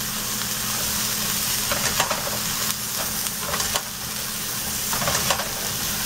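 Cauliflower pieces sizzling in a little hot oil in a pan, with a steady frying hiss, while a slotted spatula stirs and turns them. The spatula scrapes and clatters against the pan in short bursts about two seconds in, around three and a half seconds, and near five seconds.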